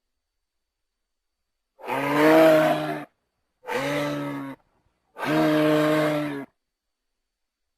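Plateosaurus dinosaur sound effect: three low, pitched animal calls, each about a second long. They start about two, three and a half, and five seconds in, with dead silence between them.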